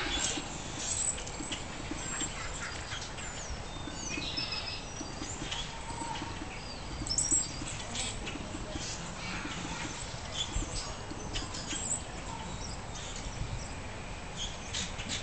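Birds chirping in short, scattered high calls over a steady outdoor background noise.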